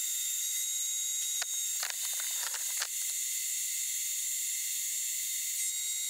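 Metal lathe running while turning down a steel washer: a steady high whine and hiss, with a few light clicks in the second and third seconds.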